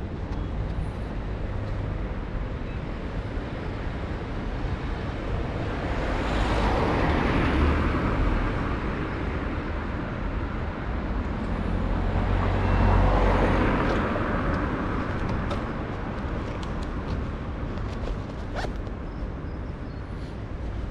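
City street traffic: two vehicles pass by, one about a third of the way in and another a little past halfway, each swelling and fading over a steady low traffic rumble.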